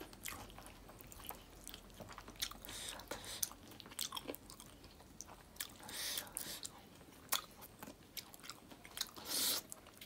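Close-up eating sounds: chewing and wet mouth smacks, with squelches from bare fingers mixing rice and smoked pork on the plate. The clicks and smacks come irregularly, a few louder about six seconds in and again near the end.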